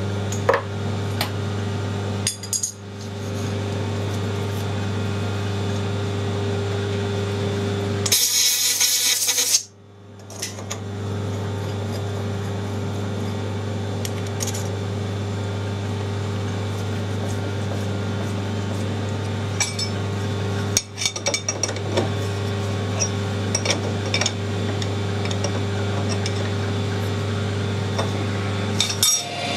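Metal clinks and clicks of a collet chuck and spanner being handled on a metal lathe as a workpiece is set in the collet and the collet nut is tightened, over a steady machine hum. About eight seconds in, a loud rushing noise lasts a second and a half.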